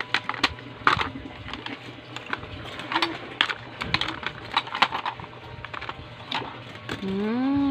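Plastic toy pieces from a toy veterinarian kit clicking and knocking irregularly as they are picked up and moved around. Near the end a drawn-out vocal sound rises and then falls in pitch.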